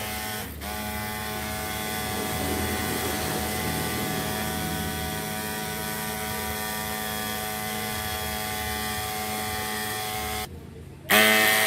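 Small electric mini water pump motor running with a steady whine. It cuts out near the end and starts again straight away, louder.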